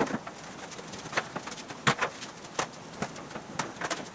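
A thin curved aluminum sheet panel being handled: irregular knocks, clicks and flexing rattles of the metal as it is carried and laid over a plywood body buck, with the sharpest knocks at the start and about two seconds in.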